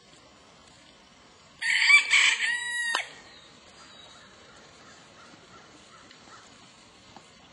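A rooster crowing once, about a second and a half in: one loud call lasting about a second and a half that ends in a falling note.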